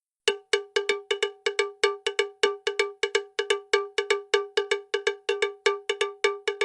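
A bell-like percussive strike repeated evenly at one pitch, about four times a second, each hit short and fading fast, like a cowbell or wood block played in a steady rhythm.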